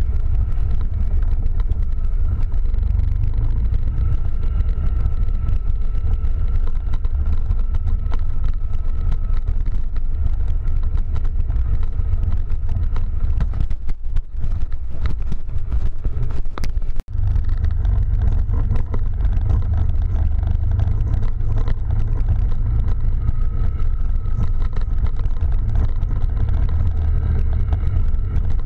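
Quad bike (ATV) engine running as it is driven along a snowy forest track, heard as a heavy low rumble from the mounted camera's microphone. The rumble thins briefly about halfway through, then cuts out for an instant before coming back.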